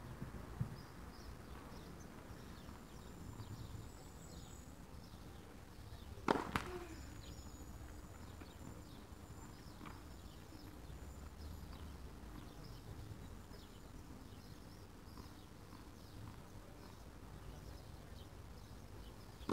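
Quiet outdoor tennis court ambience with faint high chirping throughout, and one sharp knock of a tennis ball about six seconds in, followed by a fainter knock a few seconds later.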